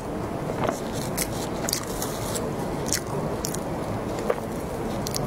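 Crisp crust of a cream-filled choux bun crackling in sharp irregular snaps as it is squeezed and torn open by hand, with soft squishing from the green cream filling.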